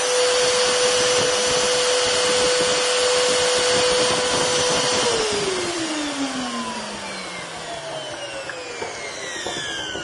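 Flama 1667FL water-filter vacuum cleaner's 1600 W motor running with a steady high whine at medium power. About halfway through it is switched off and winds down, the whine falling steadily in pitch and fading.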